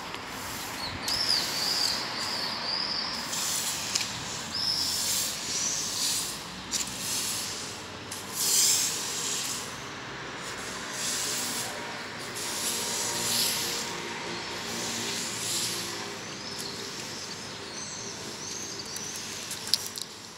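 A street cleaner's hose spraying a jet of water onto the road, a hiss that swells and fades every second or two as the spray moves. Birds chirp briefly near the start and again near the end.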